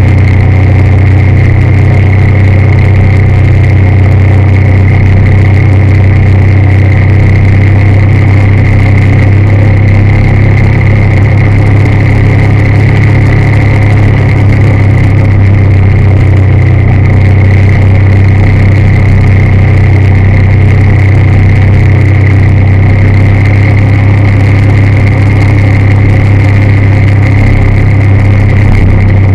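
Steady drone of a moving vehicle's engine and road noise, heard from aboard the vehicle while cruising. Loud and even throughout, with a deep hum and a fainter high whine over it.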